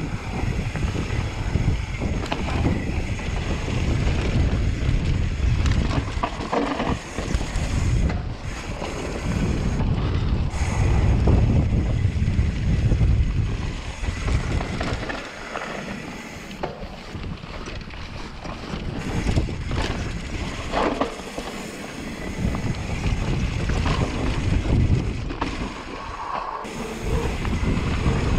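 Mountain bike rolling fast down a dirt trail: wind rumbling over the action-camera microphone, with tyre noise on the dirt and scattered knocks and rattles from the bike over bumps.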